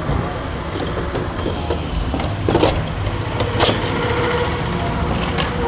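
Steel power tiller blades and bolts clinking as they are handled and fitted onto the blade shaft's flange, two sharp metallic clinks standing out about two and a half and three and a half seconds in, over a steady low mechanical rumble.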